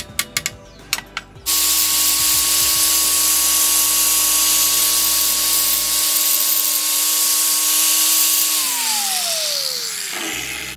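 A few sharp hammer blows on steel clamped in a bench vise, then an electric angle grinder starts and grinds metal steadily. Near the end it is switched off and its whine falls in pitch as the disc winds down.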